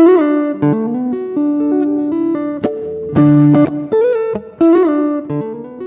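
Background music: a guitar melody with bent notes, its short phrase repeating about every five seconds.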